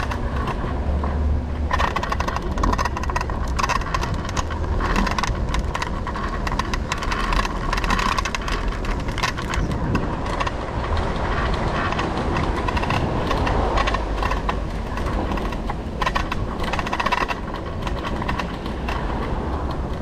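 Bird electric scooter ridden over brick paving: a steady rumble with constant clattering and rattling as the small wheels run over the joints, and a steady whine.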